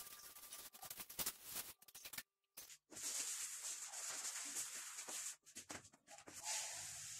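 Rubbing and scrubbing as a rubber-gloved hand cleans kitchen wall tiles, in irregular strokes with small ticks; after a short gap, a steady scratchy rubbing as the countertop is wiped down.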